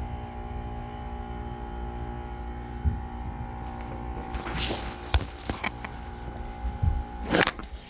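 Carrier Comfort Series 3-ton heat pump (25SCA536) running with a steady, loud droning hum, with a few short knocks in the second half. The owner calls the noise ridiculous for a brand-new unit.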